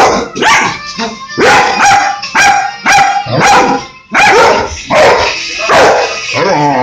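Dog barking excitedly in play, about a dozen sharp barks at roughly two a second, with a short break about four seconds in.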